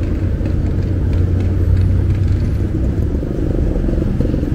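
Motorcycle engine of a tricycle running steadily as the passenger rides along, a continuous low rumble with road noise.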